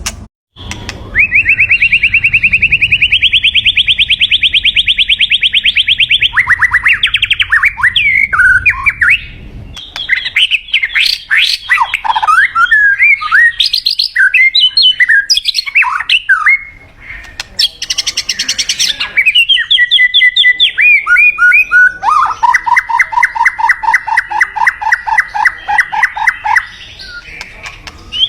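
White-rumped shama singing: long fast runs of the same note repeated many times a second, broken by varied whistled phrases that slide up and down, with a harsh scratchy note about two-thirds of the way in.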